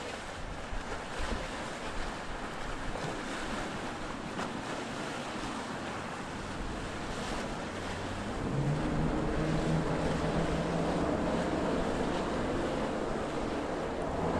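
Wind and water noise, then from a little past halfway the steady drone of a large center-console boat's multiple outboard engines comes in as it runs past under power.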